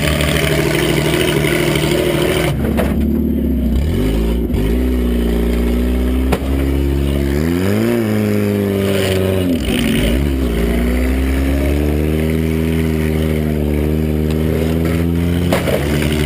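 Mini derby truck's engine heard from inside the cab, running hard with the throttle working: its pitch drops twice and climbs in a rev around the middle. A few sharp knocks cut through, about two and a half seconds in, midway, and near the end.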